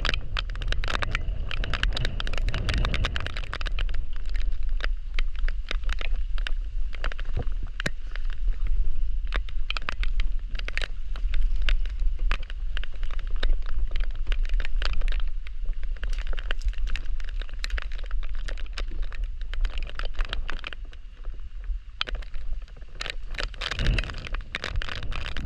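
Wind buffeting the microphone with a constant low rumble, overlaid by frequent irregular clicks and taps.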